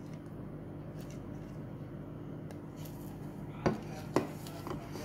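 Two sharp knocks of kitchen utensils against a pot or bowl as chopped onion is tipped in, over a steady low hum.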